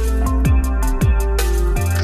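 Electronic background music with a fast beat, a heavy bass line and repeated downward-sweeping bass drops.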